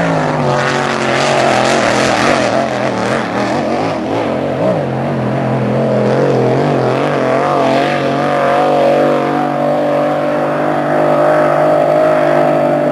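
Racing powerboat engines running hard at race speed as the boats pass, a loud steady engine note that wavers slightly in pitch.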